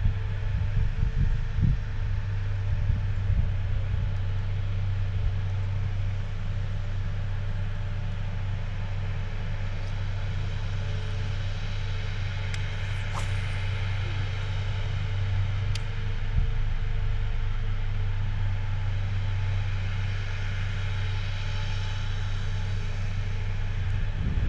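Steady low hum of a bass boat's bow-mounted electric trolling motor running, with a couple of sharp clicks about halfway through.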